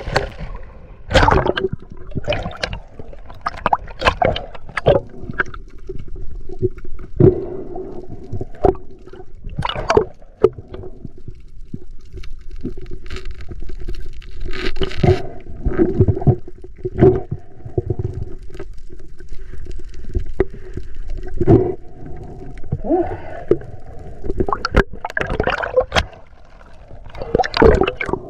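Underwater sound picked up by an action camera's housing: a muffled, murky water rush broken by many sharp knocks and clicks, beginning with a splash as the camera goes under.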